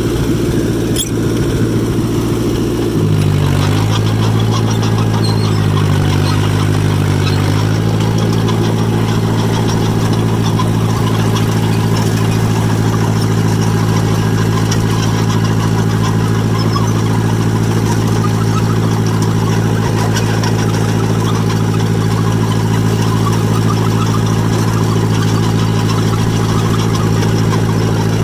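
John Deere 1010 crawler's carbureted four-cylinder engine running steadily as the machine drives. Its speed dips briefly twice in the first several seconds, then holds even. The owner says it is running a little rich.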